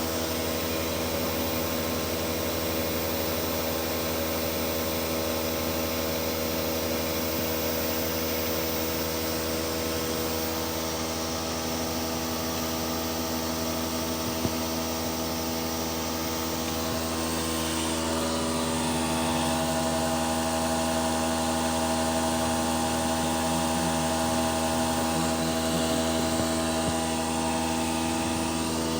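CNC machine running under test: a steady motor hum with several whining tones, and a higher whine joining about two-thirds of the way through as the machine's motion changes.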